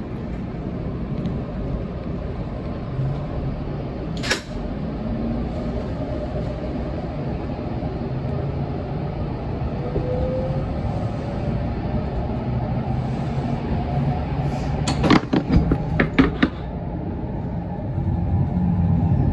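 Inside the cabin of an N700S Shinkansen pulling away from a platform: a steady low rumble that builds slowly, with a faint rising motor whine. A single sharp click comes about four seconds in, and a quick run of clacks comes near the end.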